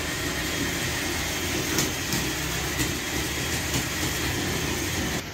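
Steady background rumble and hiss, like traffic or running machinery, with a few faint clicks near the middle; it cuts off suddenly near the end.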